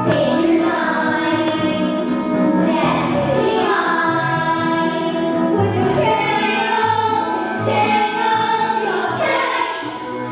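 A children's chorus singing a show tune in unison over instrumental backing, in long held phrases.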